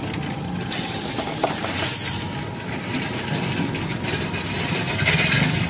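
Compressed air hissing from an air-line nozzle at a car tyre's valve as the freshly plugged tyre is inflated. It comes in two spells: a strong one starting about a second in, and a weaker one near the end.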